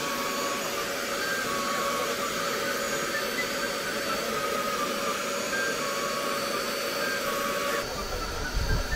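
A vacuum, of the kind used on car carpet, running steadily with a rushing hiss and a faint steady whine. Near the end it gives way to a low rumble.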